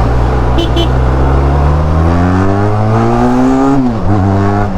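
Benelli TRK 502's parallel-twin engine accelerating hard, its exhaust note climbing steadily for about two seconds, then dropping abruptly near the end as the rider shifts up a gear.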